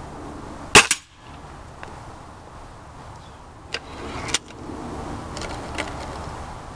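A Beeman RS2 .22 break-barrel spring-piston air rifle fires once with a sharp crack just under a second in, and a second smack follows a split second later as the pellet strikes a target. A few quieter mechanical clicks follow later.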